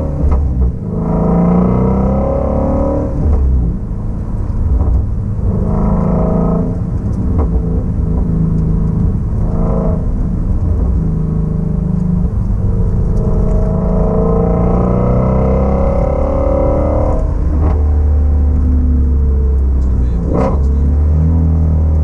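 Shelby GT350's 5.2-litre flat-plane-crank V8 heard from inside the cabin under light acceleration. The engine note climbs in pitch several times and drops back after each pull, then settles into a steady low rumble at cruise for the last few seconds.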